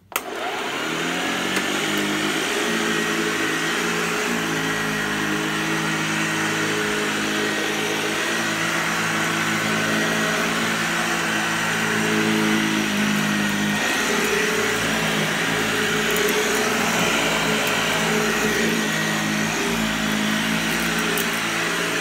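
Hoover Lightweight 1340 upright vacuum cleaner switched on and running steadily while pushed over carpet. Its motor whine climbs in pitch as it spins up over the first couple of seconds.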